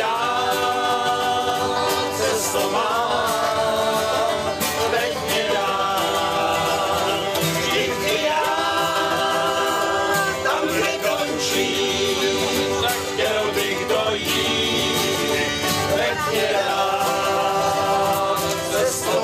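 Small country-style string band singing and playing, with male voices over double bass and fiddle.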